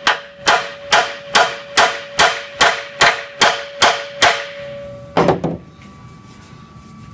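Hammer tapping on a damaged steel truck frame rail, eleven even blows at about two and a half a second, the metal ringing on between them. A louder clatter about five seconds in, after which the ringing stops.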